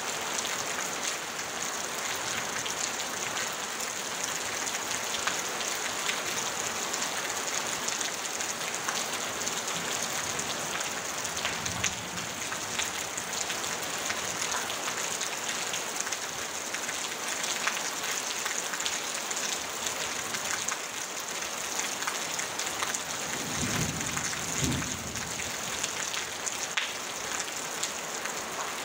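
Rain falling on a tin roof: a steady dense patter of drops. A brief low rumble comes about four-fifths of the way through.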